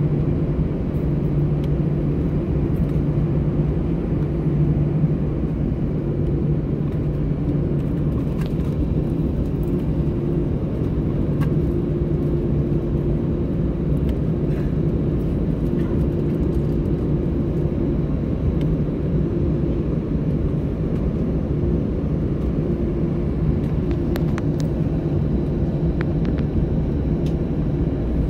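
Airbus A320 engines at low taxi thrust, heard inside the cabin: a steady low hum with a constant drone.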